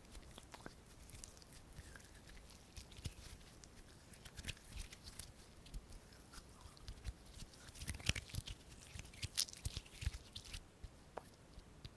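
ASMR hand sounds close to a sensitive microphone: skin rubbing, tapping and fidgeting, giving many irregular soft clicks and crackles that grow busier in the middle and ease off near the end.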